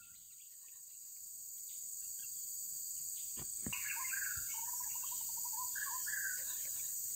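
Insects shrilling steadily in the forest undergrowth, with a bird calling in short warbling phrases from about four seconds in. The sound fades in over the first two seconds, and a couple of sharp clicks come just before the bird starts.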